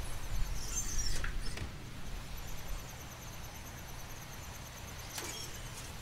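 Wind rumbling on the microphone, easing off about two seconds in, over a steady high trill of night insects. Two brief high squeaks that drop in pitch come about a second in and again near the end.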